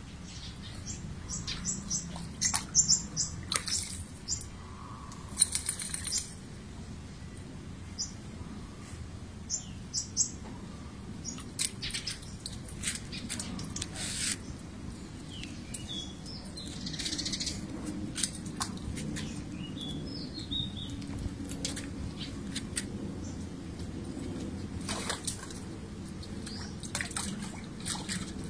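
Pomeranian puppy splashing in a pot of muddy water: a run of short, sharp splashes over the first several seconds, with more scattered ones after. Birds chirp in the background, more clearly in the second half.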